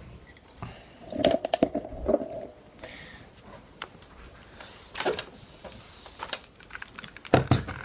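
Handling noise: scattered knocks and rubbing as a thin grooved plywood panel is moved about and a hand reaches over the recording device, with a short creaking sound lasting about a second, starting a little over a second in.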